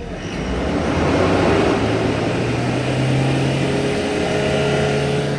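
Toyota Hilux four-cylinder turbo-diesel engine running, building up over the first second and then holding a steady drone. It has just had its i-ART injectors reprogrammed, and the mechanic judges it smooth now where it had sounded rough.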